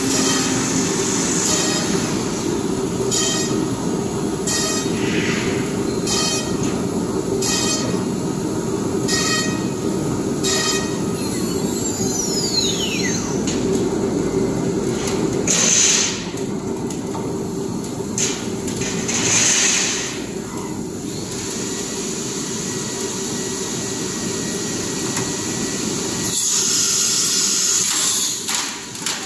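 ATC CNC router with a 16-tool carousel changer running: a steady mechanical hum with regular clicks, a falling whine about twelve seconds in, then several loud hisses of compressed air while the tool changer swings in under the spindle to swap tools.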